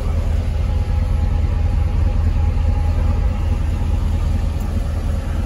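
Chevrolet Silverado 3500HD utility truck's engine idling: a steady low rumble with a faint even hum above it.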